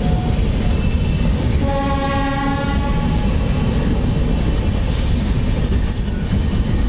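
Passenger train running at speed, heard from an open coach door: steady rumble of wheels on rail with rushing air. About two seconds in, a train horn sounds once for roughly a second and a half.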